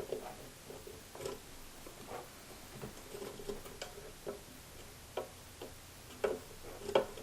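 Irregular light clicks and taps of computer parts being handled and fitted on a motherboard, several sharper clicks near the end.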